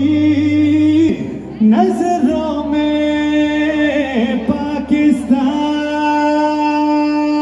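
A singer holding long, drawn-out notes in an Urdu patriotic song about Pakistan, one short note and then one long held note, over a steady low drone.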